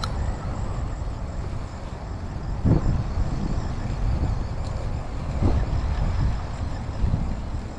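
Wind buffeting the microphone in a low, uneven rumble, with a few soft knocks about a third of the way in, past the middle and near the end.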